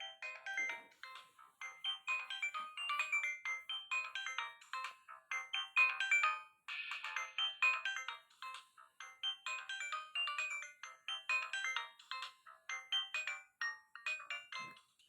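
Nokia 1265 mobile phone playing a ringtone: a fast melody of short electronic beeping notes, stopping just before the end.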